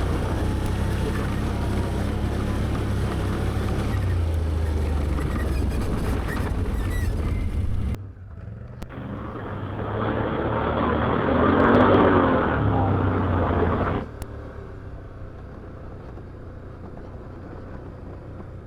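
Can-Am Outlander 850 ATV's V-twin engine running steadily, cutting off sharply about eight seconds in. Then a rushing noise swells over the engine for several seconds and stops suddenly, leaving a quieter engine hum.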